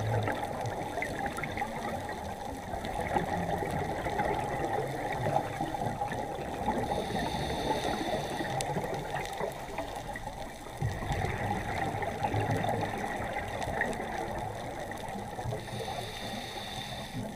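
Underwater ambience picked up through a diving camera's waterproof housing: a steady, muffled crackling water noise that swells and eases slowly.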